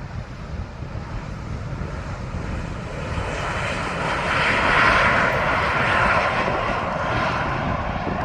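Airbus A220 jet passing low on its landing approach, the sound of its Pratt & Whitney geared turbofan engines rising to a peak about five seconds in and then easing slightly.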